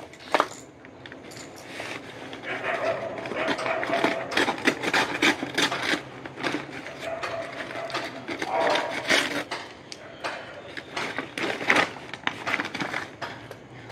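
Brown paper courier package rustling and crinkling as it is handled, in a run of irregular crackles and scrapes, with scissors cutting into the paper near the end.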